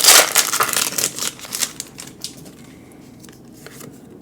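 Foil wrapper of a Pokémon card booster pack being torn open: a loud burst of crinkling and ripping in the first second or so, then fainter rustling and light clicks as the cards are handled.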